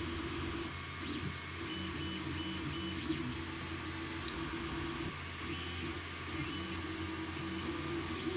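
Creality Ender 3 Pro 3D printer printing: its stepper motors whine in short, level tones that switch on and off and change pitch as the print head moves, over a steady low hum.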